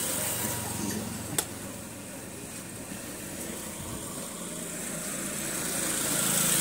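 Bajaj Pulsar RS200 motorcycle engine idling steadily, with a single sharp click about a second and a half in; the sound swells toward the end.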